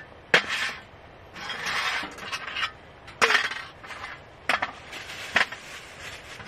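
Small tableware being handled on a metal camp table: clicks and knocks of a plastic food container's lid and a spoon in a steel mug, with rustling in between.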